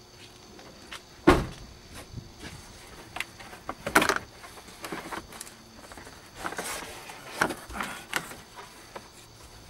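A car's headliner board knocking and scraping against the door opening and interior as it is worked out sideways through the front door. There is a sharp knock about a second in and another about four seconds in, then a string of lighter knocks and scrapes.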